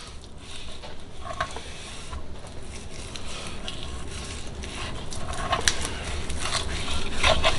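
Knife slicing and scraping along a wooden cutting board as the skin is cut off a yellowfin tuna loin, with scattered small clicks and taps, a little louder near the end.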